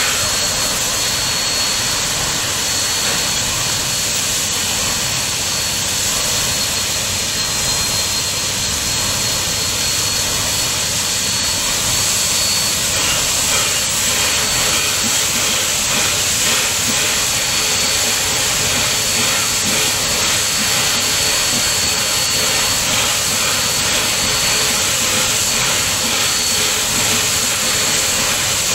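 Steady rushing running noise of a passenger train in motion, heard from aboard, with a thin steady high-pitched tone in it.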